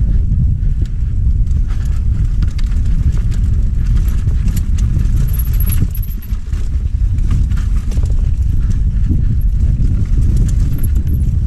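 Mountain bike rattling and clattering down a rough dirt trail, heard through a handlebar-mounted camera: a steady loud rumble of wind buffeting and vibration on the microphone, with many irregular clicks and knocks as the bike bounces over ruts. The rumble eases briefly about halfway through.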